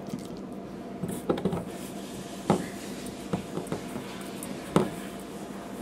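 Hands pressing a raw steak into dry espresso rub in a stainless steel bowl: soft rustling, with about five light knocks against the bowl spread through.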